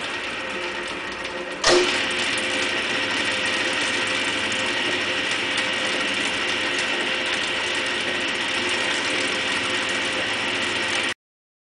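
Powered coil cradle's motor and roller drive running with a steady mechanical whine of gears. A sharp clunk comes about two seconds in, after which it runs louder, and the sound cuts off suddenly near the end.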